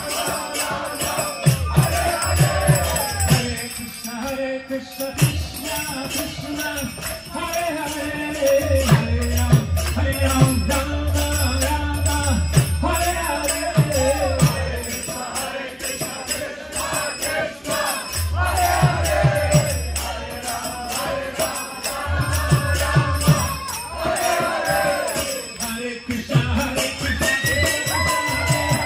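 Kirtan: a group of voices chanting together over hand cymbals (karatalas) ringing in a steady, fast beat, with low sustained tones underneath.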